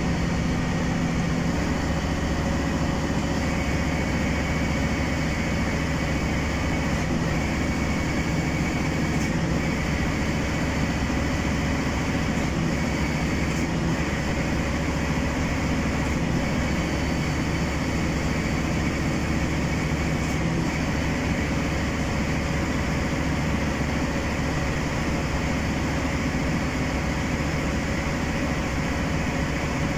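Passenger train running along the track, heard from inside the carriage: a steady rolling rumble with a constant low hum.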